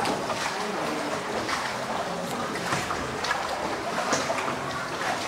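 Water lapping and splashing around a small rowboat as it is rowed along an underground river inside a cave, with irregular small splashes from the oars.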